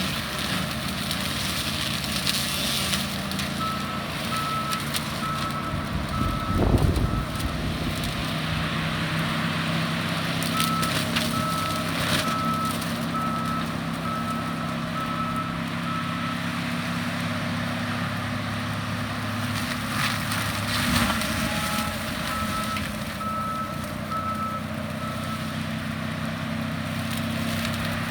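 John Deere 333G skid steer running steadily with a forestry disc mulcher attached. Its reversing alarm beeps in three spells as it backs up. There is a single loud crunch about seven seconds in.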